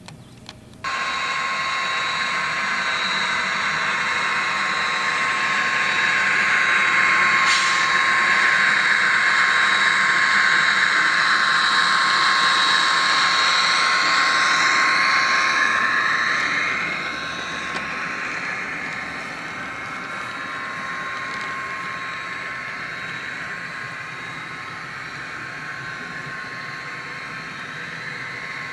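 HO-scale model train running past on layout track: steady running noise with a thin whine, starting abruptly about a second in, loudest in the middle as the train goes by, then falling back to a lower steady level.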